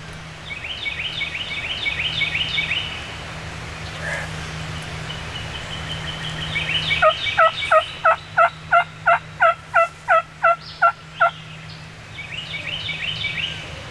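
Wild turkey gobbler gobbling, a rapid rattling run of notes near the start and again near the end. Midway comes a loud run of about a dozen evenly spaced turkey yelps, about three a second.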